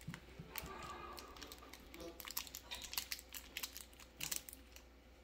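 Plastic wrapper of a Toxic Waste sour hard candy crinkling as it is picked open by hand, a run of quick irregular crackles.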